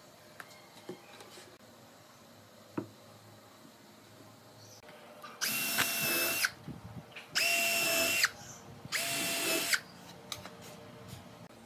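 Cordless drill running in three short bursts, each about a second long with a steady whine, as it works into the wooden bench frame. A few light knocks come before it.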